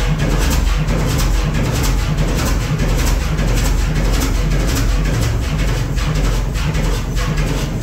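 Fairbanks Morse 32E six-cylinder two-stroke diesel engine running steadily, with a rapid, even beat of exhaust pulses.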